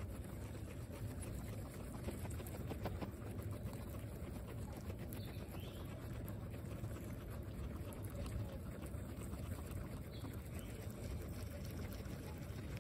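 Several guinea pigs chewing and tearing fresh grass up close: a continuous stream of small crunching clicks over a steady low rumble.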